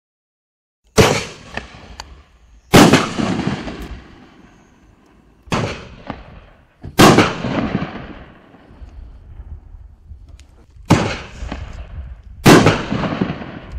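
4-inch canister firework shells fired one after another from a mortar tube: three shells, each a sharp launch bang followed about a second and a half later by the bang of the shell bursting overhead. Every bang has an echoing tail, and a few smaller cracks come between them.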